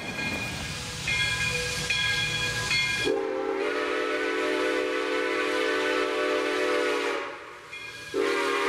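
Rumble of a passing train, then the chime steam whistle of Santa Fe #3415, a 1919 Baldwin 4-6-2 Pacific, blowing. A long chord of several notes starts suddenly about three seconds in and breaks off about seven seconds in. A second blast starts near the end.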